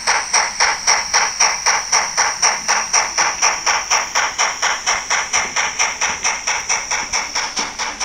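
Model BDZ class 45 steam tank locomotive's sound unit playing a steady, even steam chuff, about four and a half beats a second, over a steady high-pitched tone. It fades slightly as the locomotive draws away.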